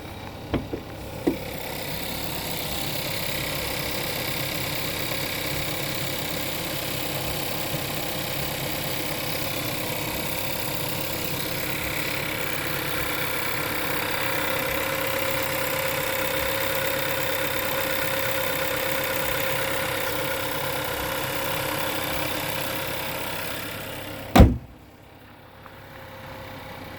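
VW 1.4 TSI (CZCA) four-cylinder turbo petrol engine idling cold at about −10 °C, with a rattle. Near the end a single loud knock, after which the running sound is quieter.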